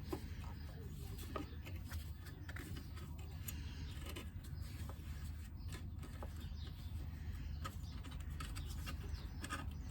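Occasional faint clicks and taps of motorcycle rear brake caliper parts being handled by hand, over a steady low hum.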